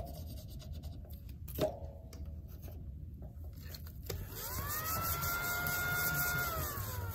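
A scratch-off card is scraped with a small metal tool, with one sharp click about a second and a half in. About four seconds in, a squeezed rubber toy lets out a long whistling tone that rises, holds, then falls, and starts again near the end.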